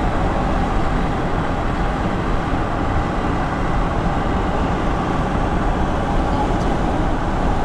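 Steady rushing road and running noise of a moving vehicle, even throughout with no distinct events.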